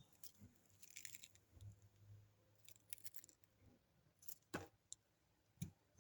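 Near silence with a few faint clicks and taps from a knife and an onion on a cutting board. The clearest come about four and a half seconds in and again near the end.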